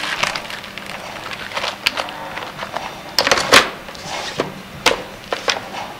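Plastic parts box and plastic packaging being handled: scattered crinkles, rustles and light knocks, the loudest pair about three and a half seconds in.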